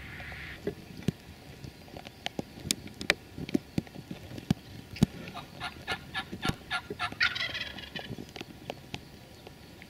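Wild turkey gobbler gobbling: a run of quick repeated notes from about five seconds in, running into a dense rattling gobble near the end. Sharp clicks and snaps come before it.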